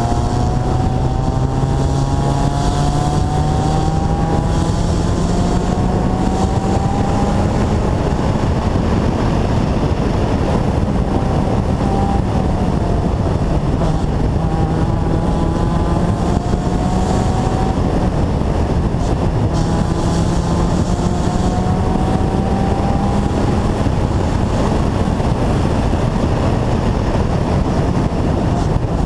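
Honda CRX rally car's engine heard onboard at speed, revving up through the gears: the pitch climbs again and again and drops back at each upshift. Loud road and wind noise runs underneath.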